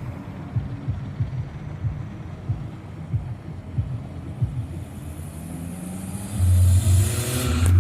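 Scania V8 diesel truck engine rumbling through a diffuser exhaust, idling with an uneven low pulsing. About six seconds in it is revved, and the note jumps to a louder, steady drone.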